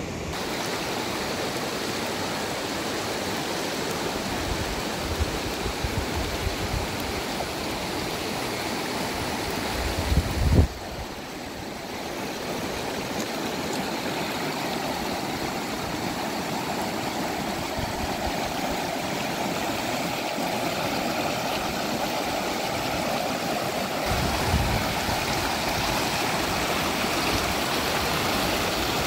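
Rushing water of a wilderness river, a steady, noisy flow. There are a few low thumps around five to seven seconds in, a louder cluster of them just before eleven seconds, and another low bump near the end.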